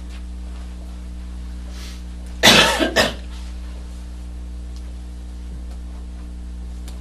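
A person coughing, two quick coughs about two and a half seconds in, over a steady low electrical hum.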